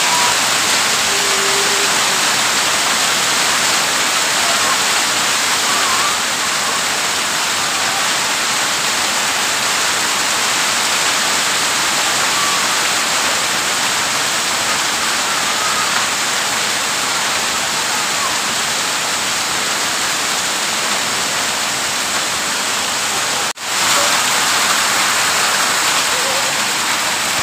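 Heavy rain pouring down in a steady, dense hiss. It drops out for a moment near the end, then goes on just as heavily.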